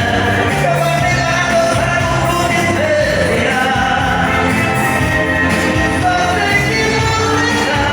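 Forró music with a voice singing over a steady bass and beat.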